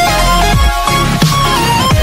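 Electronic dance music: a held synth melody over a heavy bass line with repeated falling bass drops.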